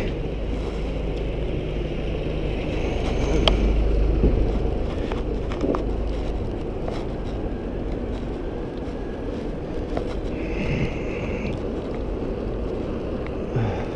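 Wind buffeting the camera microphone and tyre noise from a bicycle riding along a city street, a steady rumble that swells briefly a few seconds in, with a short higher hiss about ten seconds in.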